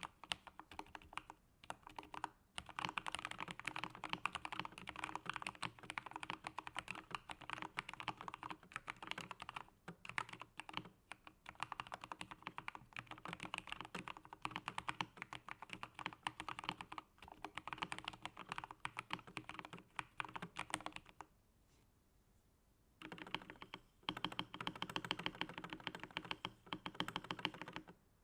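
Fast continuous typing on an Epomaker GK87S mechanical keyboard with lubed Gateron Milky Yellow switches, a steel plate and a foam-damped case, keys clacking in quick runs. The typing stops for about two seconds past the two-thirds mark, then carries on.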